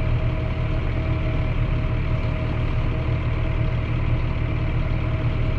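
Tractor engine running steadily at an even speed during ploughing, a constant low drone with no change in pitch or level.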